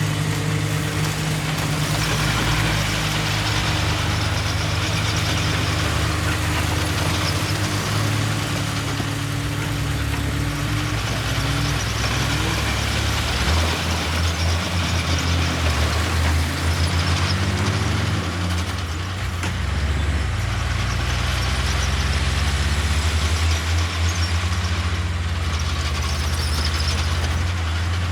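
Heavy diesel earthmoving machinery running steadily. The engine note shifts up and down about halfway through, then settles again.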